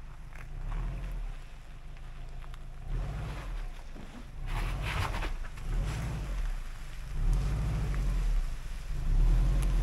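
Subaru Forester reversing slowly over a dirt track toward the microphone, its engine running with a low rumble that grows louder as the car comes close near the end.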